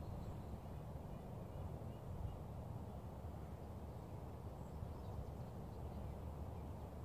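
Quiet outdoor ambience: a steady low rumble with a few faint high chirps.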